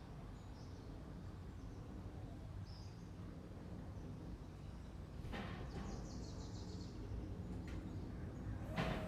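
Backyard birds chirping faintly over a steady low outdoor background noise, with a quick, rapid run of high chirps around the middle. Near the end a sharp knock is followed by a steady ringing tone.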